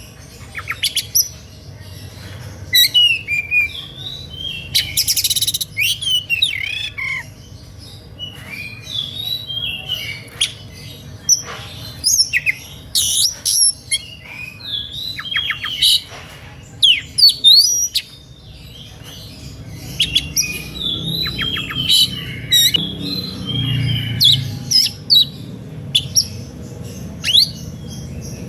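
Oriental magpie-robin (kacer) in full, excited song: a fast, varied run of whistles, quick rising and falling notes, trills and harsh chirps with barely a pause, over a low steady hum. This is the 'emotional' style of singing that is meant to provoke other magpie-robins into answering.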